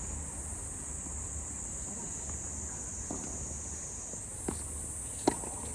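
Steady high-pitched insect chorus that shifts up in pitch about four seconds in. Near the end come two sharp tennis-ball impacts, the second the loudest.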